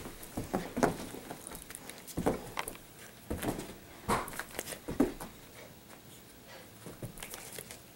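Italian greyhounds' paws thumping and pattering on carpet as they jump and bounce about, a series of irregular soft thumps.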